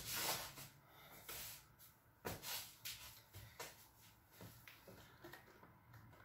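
A man's sharp, noisy breaths in and out while doing push-ups: short gusts of breath roughly every half second to second, the strongest at the very start and about two and a half seconds in.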